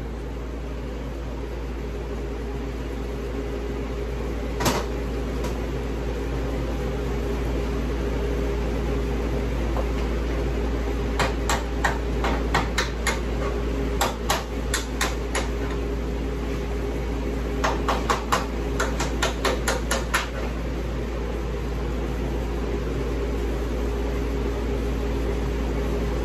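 Runs of quick, sharp metal taps, several a second, on a mower deck spindle (mandrel) assembly being worked on, with one single knock earlier. A steady low machine hum runs underneath.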